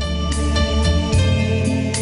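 Background music: plucked guitar notes over a steady bass line.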